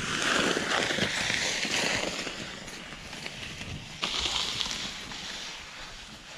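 Snow shovel scraping and pushing through deep snow. There is a long rushing scrape that fades over a few seconds, then a second, shorter one about four seconds in.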